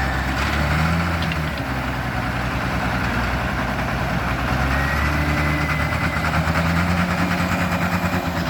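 Komatsu WA350 wheel loader's diesel engine running steadily, its note shifting about a second in and again about five seconds in. A thin high whine sounds for about a second, around five seconds in.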